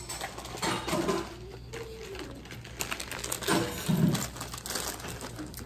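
Snack packaging crinkling and crunchy caramel cone snacks being chewed, with a couple of low closed-mouth 'mm' hums while tasting.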